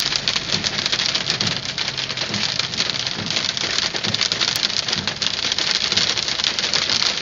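Hail pelting a moving car, a dense, continuous clatter of countless small impacts on the body and glass.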